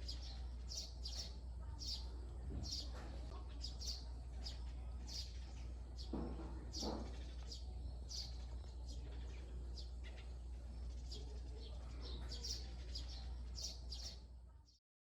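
Small birds chirping in short, high calls, about one or two a second, over a steady low hum.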